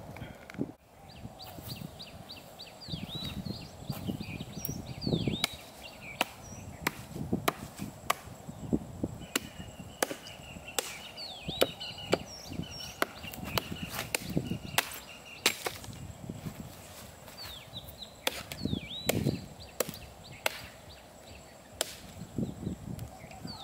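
Small hatchet chopping wood on a tree stump: a steady run of sharp blows, one every second or so.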